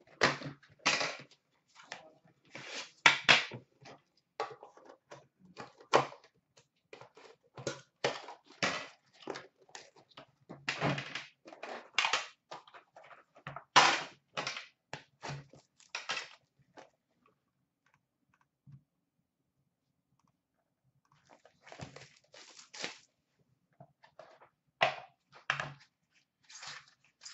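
Handling noises from opening a hard box of trading cards: the box sliding out of its sleeve, the lid lifting off and being set down on a glass counter, with irregular knocks, clicks and rustles. The handling pauses for a few seconds past the middle, then picks up again as the contents are taken out.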